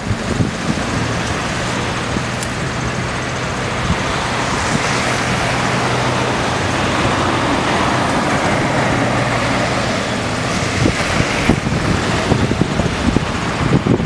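Road traffic on a wet road: a steady engine hum and tyre noise, swelling as a vehicle passes in the middle and then easing.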